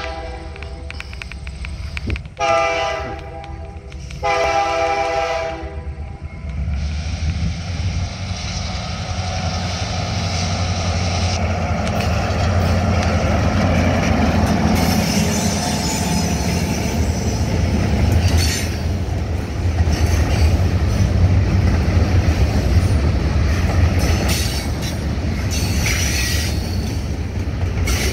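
Finger Lakes Railway diesel locomotives sounding the air horn in three blasts, the first starting before the clip and the last ending about six seconds in. The lead units then pass with their engines running, followed by a string of freight cars rolling by with wheel clatter and some wheel squeal.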